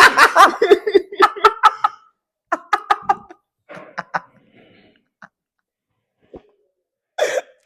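A person coughing and making short breathy vocal sounds after eating a sandwich spiced with Carolina Reaper pepper, in scattered bursts that die away about halfway through, followed by one sharp click and a brief burst near the end.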